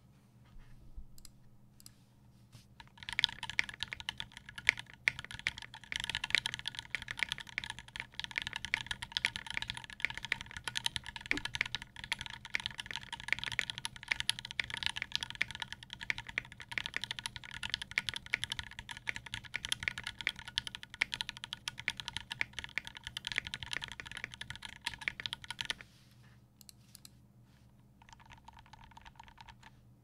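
Typing on a custom 60% mechanical keyboard with lubed Gateron Brown tactile switches, GMK Carbon keycaps and an aluminium plate in a silicone-gasket (burger) mounted Keygem 5 Degree case with EVA foam inside. A few single keypresses, then a fast continuous run of keystrokes from about three seconds in that stops several seconds before the end, followed by a couple of stray presses.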